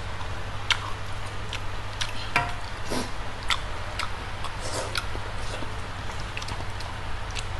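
People eating spicy Korean noodles: scattered small clicks and taps of eating at irregular intervals, over a steady low hum.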